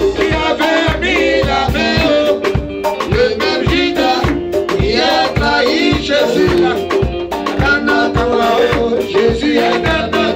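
Live praise song: a man singing into a microphone over a band with a steady, even drum beat.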